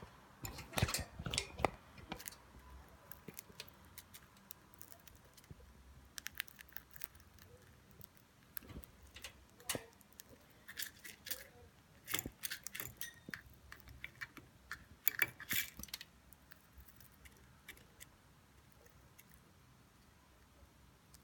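Budgerigar pecking and nibbling, with irregular sharp clicks and scratchy rustles that come in clusters and thin out to a few faint clicks in the last few seconds.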